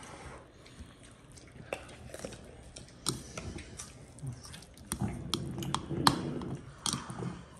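Close-up eating sounds: chewing with scattered sharp clicks and smacks. They start under two seconds in and grow busier and louder from about three seconds in.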